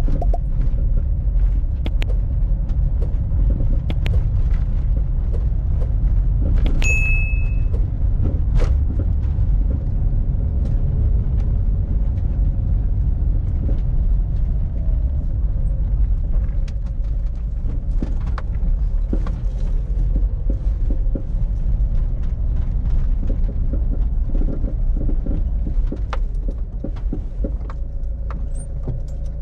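In-cabin sound of a 2001 Citroën Berlingo's 1.9-litre four-cylinder diesel and tyres on an unpaved track: a steady low rumble with frequent small clicks and rattles. There is a short high tone about seven seconds in, and the rumble eases a little near the end as the van slows.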